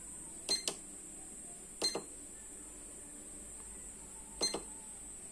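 Short electronic beeps from a digital refrigerant charging scale as its buttons are pressed to zero it: a quick double beep about half a second in, another near two seconds, and a last one about four and a half seconds in.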